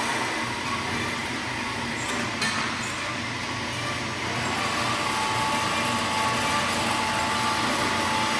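Horizontal metal-cutting bandsaws running through cuts: steady machine noise with several held tones, and a short click about two and a half seconds in.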